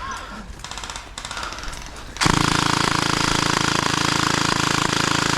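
Electric gel blaster firing a long full-auto burst, a fast, even mechanical rattle that starts suddenly about two seconds in and keeps going.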